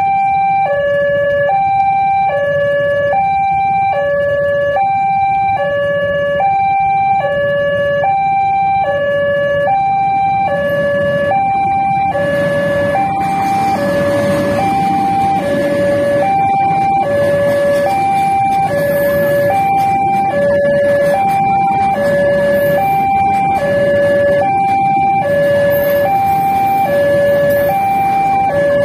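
Electronic two-tone warning alarm of a railway level crossing, alternating evenly between a lower and a higher tone about every three quarters of a second. From about twelve seconds in, the rumble of a diesel locomotive and passenger coaches rolling over the crossing rises beneath it.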